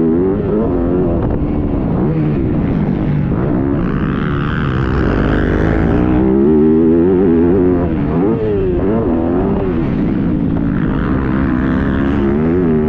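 Yamaha YZ250F dirt bike's four-stroke single-cylinder engine revving up and falling back over and over as it is ridden around a motocross track, heard close from an onboard camera, with rushing wind noise in places.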